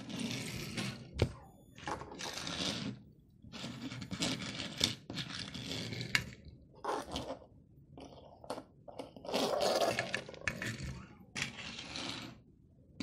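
Die-cast Disney Pixar Cars toy cars pushed by hand across a tabletop: short repeated bursts of wheels rolling and scraping on the surface, with a few sharp clicks as a car is set down or knocked.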